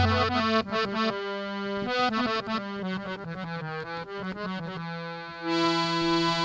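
Harmonium playing a quick melodic run over a held low drone note in an instrumental break of a Holi rasiya folk song; near the end the melody settles onto one long held note.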